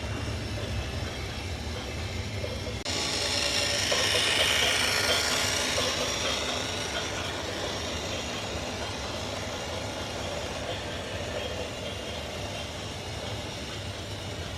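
Heavy vehicle noise: a steady low rumble that changes abruptly about three seconds in to a louder hissing rush, which swells and then slowly fades.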